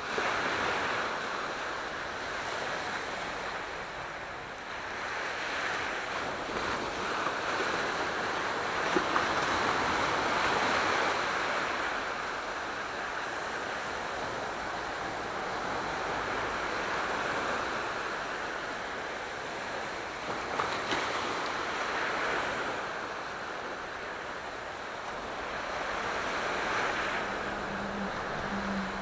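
Aegean Sea waves surging onto the shore, the rush of surf swelling and easing every few seconds. A faint low steady hum joins near the end.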